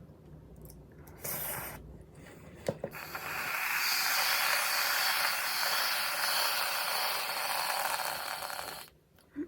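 Aerosol whipped-cream can spraying cream: a brief hiss about a second in, then one long steady hiss of about six seconds that cuts off suddenly.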